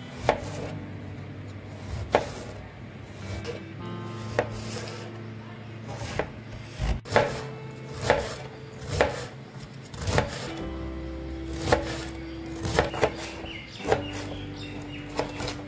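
Large kitchen knife chopping a raw cabbage: crisp, irregular knocks of the blade through the leaves onto the cutting surface, about one a second, over faint background music.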